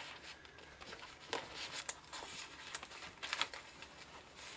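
Faint rustling and light taps of patterned scrapbook paper and an envelope being handled and laid on a table.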